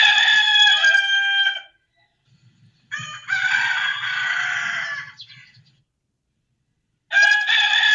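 Roosters crowing: three long crows, one at the start, one about three seconds in, and one near the end, thought to be two roosters answering each other.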